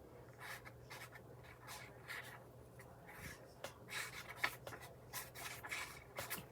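Paper and card being handled on a tabletop: soft, irregular scratchy rustles and rubs as pieces are moved and pressed into place.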